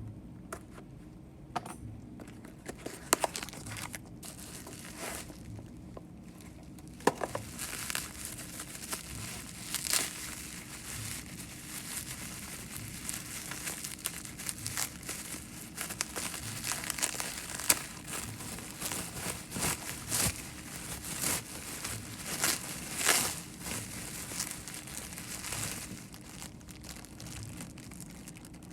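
Packaging crinkling and rustling while a parcel is unboxed, with scattered sharp crackles and clicks, sparse at first and busier from about a quarter of the way in until near the end.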